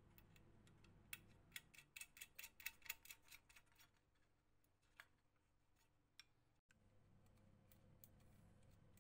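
A quick run of small metallic clicks, several a second for about three seconds, then a couple of single clicks. They come from a small nut and washer being fitted by hand onto a bolt in a metal flashlight body.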